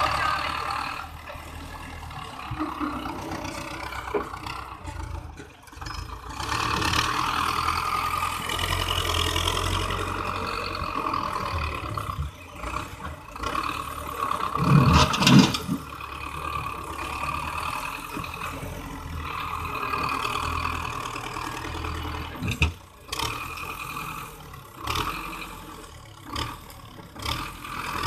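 Diesel engine of a front-end loader tractor running and revving up and down as the loader works sand, with a short loud burst of knocks about halfway through.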